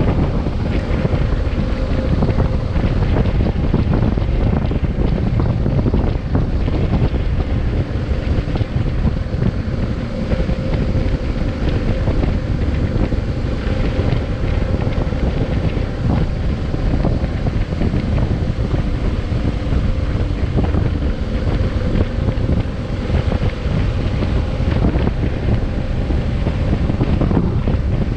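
Wind buffeting an action camera's microphone on a moving motorcycle, a steady heavy rumble, with the bike's engine droning faintly underneath.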